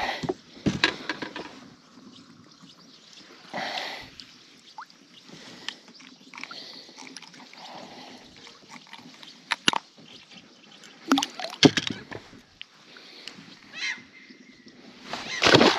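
Handling noises as a freshly caught zander is swung in over a boat's side and unhooked with pliers: irregular knocks, scrapes and rustling with some water sloshing, and a few sharp clicks through the middle. The loudest bursts come at the start and near the end.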